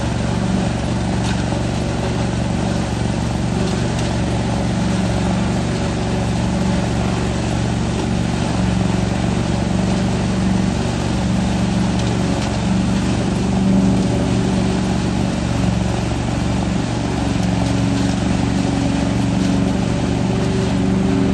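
Truck-mounted leaf vacuum running steadily, its engine and fan sucking leaves up the wide hose into the truck's box: a continuous engine drone under a broad rushing noise.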